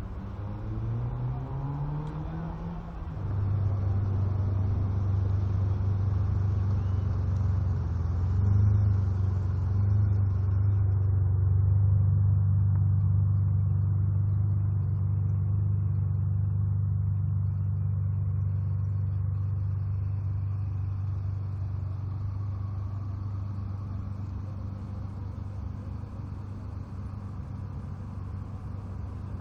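Ferrari 550 Maranello's V12 engine running at low revs. A short rising note in the first seconds gives way to a sudden, much louder deep steady note about three seconds in, which slowly fades toward the end.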